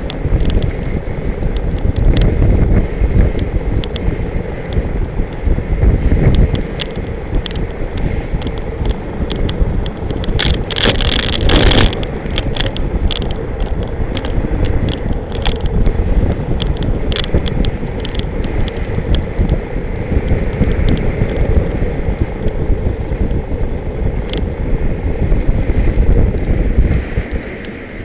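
Kite buggy rolling over beach sand: heavy wind buffeting the microphone over a low rumble from the wheels. Scattered clicks and rattles run throughout, with a dense patch of rattling about eleven seconds in.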